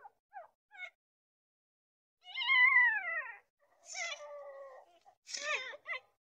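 Newborn puppy crying: a few short squeaks, then a long, loud, high cry that falls in pitch about two seconds in, a lower drawn-out whine around four seconds, and a quick run of squeaks near the end.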